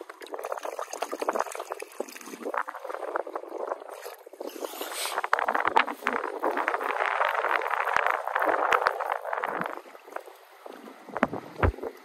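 Choppy water lapping and sloshing against the side of a small aluminum fishing boat, with scattered light clicks and knocks. It is a little louder in the middle and eases off near the end.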